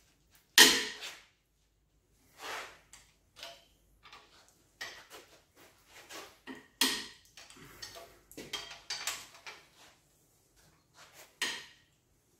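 Metal hand tools clinking and clanking against a 5.9 Magnum V8 engine as a wrench is worked on its bolts during teardown: irregular sharp knocks, the loudest about half a second in.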